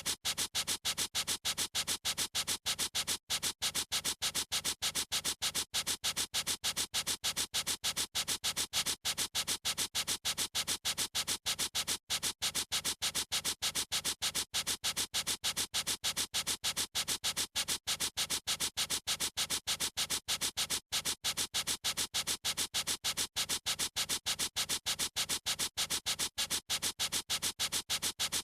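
A pencil or marker tip scribbling in rapid, even back-and-forth strokes, about five a second, as a continuous scratchy rasp with a few brief breaks.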